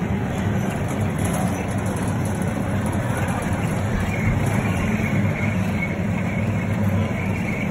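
Miniature ride-on park train running past on its small-gauge track: a steady low rumble of wheels rolling on the rails, with a faint high wavering tone from about halfway.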